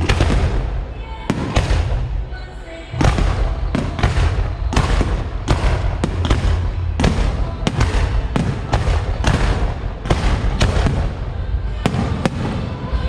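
Fireworks going off in a rapid series of sharp bangs over a low rumble, with a brief lull about two to three seconds in.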